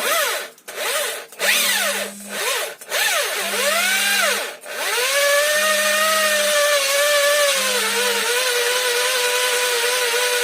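Cordless drill drilling out the rivets that hold a Daewoo Lanos ball joint to its control arm. It comes in several short trigger pulls, the motor speeding up and slowing down, then runs steadily under load from about five seconds in.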